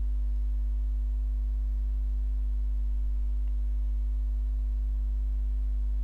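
Steady low electrical hum at mains frequency, with a few fainter steady higher tones above it, picked up by the recording setup.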